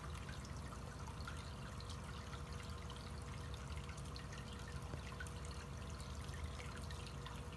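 Faint, steady background noise: a low hum and hiss with a thin steady tone and a few faint ticks, with no distinct event.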